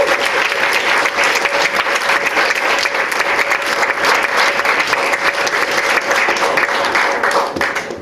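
Audience applauding, the clapping dying away near the end, with a steady tone sounding underneath.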